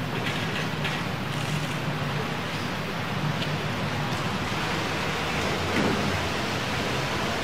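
Steady outdoor street ambience: an even wash of distant traffic noise with a faint low hum underneath.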